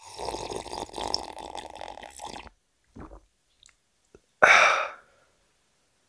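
A person slurping hot tea: one long noisy slurp lasting about two and a half seconds, a short sip just after, then a louder, brief slurp about four and a half seconds in.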